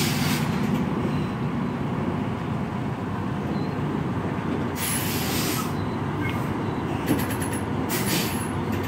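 Semi-truck's diesel engine running at low speed while the tractor-trailer reverses, a steady low rumble. Brief hisses of air cut in about five seconds in and again near the end.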